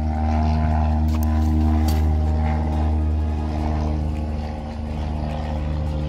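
An engine running steadily nearby, a constant low hum with an even stack of tones that does not change in speed. A couple of short clicks about one and two seconds in.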